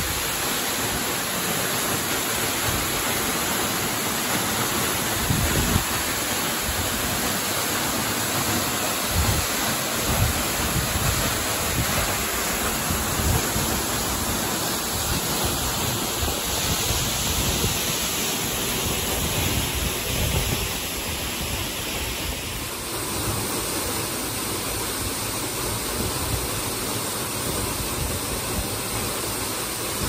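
Waterfall plunging into its pool: a steady, even rush of falling water, with wind buffeting the microphone in low, uneven gusts. The rush drops slightly in level about two-thirds through.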